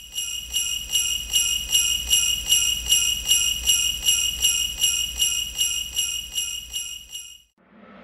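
Jingle bells shaken in a steady rhythm, about three shakes a second, fading away and stopping shortly before the end.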